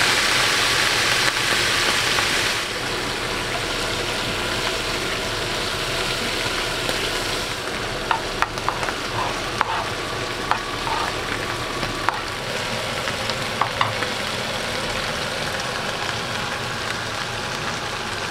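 Button mushrooms and sweet corn sizzling in hot oil in two frying pans. The sizzle is loudest for the first couple of seconds, just after the corn goes into its pan, then settles to a steadier, lower hiss with a few sharp ticks in the middle.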